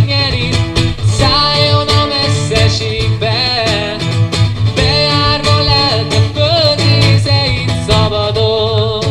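A small acoustic band playing a song: a man singing long held, wavering notes over strummed acoustic guitars, with a steady deep bass underneath.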